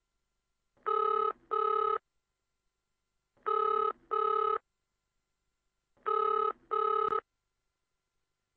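Cordless telephone ringing electronically in a double-ring pattern: three ring-ring pairs, then it stops as the call is answered.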